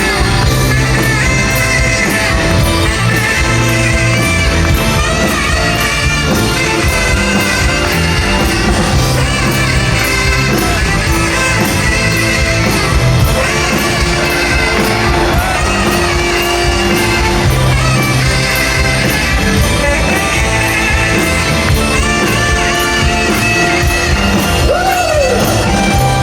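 Live rock band playing with singing over a steady beat, loud and continuous.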